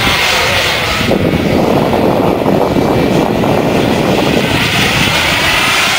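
Turbine engine of a radio-controlled model jet in flight: a loud, steady jet rush. Its high hiss dulls about a second in.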